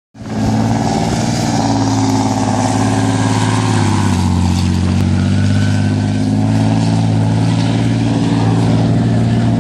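Olifant main battle tank's V12 diesel engine running loud as the tank drives past, its deep note dropping to a lower pitch about four seconds in.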